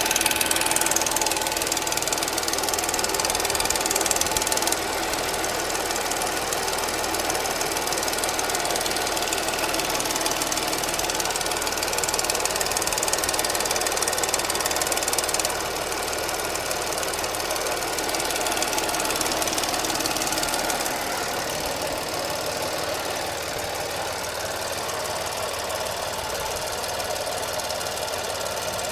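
Audi A6 3.0 TFSI supercharged V6 engine running shortly after a cold start, giving the strange sound that the owner hears on cold start-up. The running noise is steady and dense, and it gets quieter in steps about five, fifteen and twenty-one seconds in.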